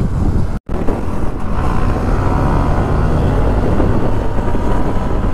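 Riding noise aboard a TVS Ntorq 125 scooter under way: its single-cylinder engine running steadily, mixed with wind rushing over the microphone. The sound cuts out for a moment about half a second in.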